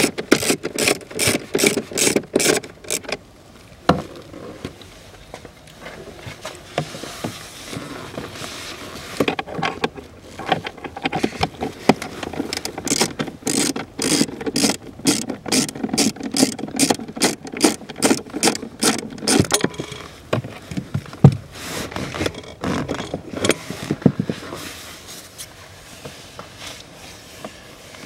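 Screwdriver undoing self-tapping screws from a plastic trim panel: rapid, even clicking, about four clicks a second, in two long runs with scattered knocks and handling of plastic parts between them.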